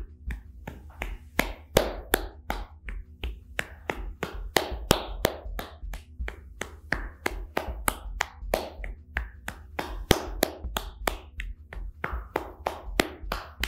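A hand slapping the sole of a bare foot in quick percussive self-massage strokes, about three to four sharp slaps a second, keeping an even rhythm.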